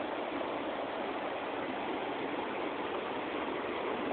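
Fast-flowing river running over rocks: a steady rushing noise of white water.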